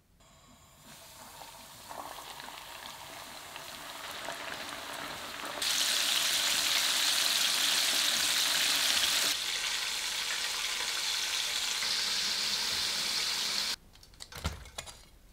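Flour-coated chicken pieces deep-frying in hot oil in a pot, a steady sizzle that gets suddenly louder about six seconds in and cuts off abruptly near the end. A few light knocks follow.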